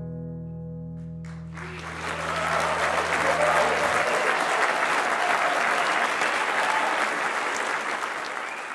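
A final chord on an acoustic guitar rings out and stops about four seconds in. Audience applause starts about a second and a half in, overtakes the chord, and carries on steadily as the loudest sound.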